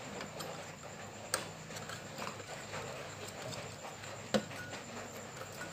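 Small clicks and taps of a 2SC2577 power transistor being handled and pressed into place against an aluminium heatsink on an amplifier board. Two sharper clicks stand out, about a second in and a louder one about three seconds later.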